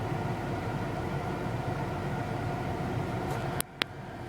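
1998 Toyota Camry engine idling steadily. About three and a half seconds in, the sound drops off suddenly, followed at once by a single sharp click.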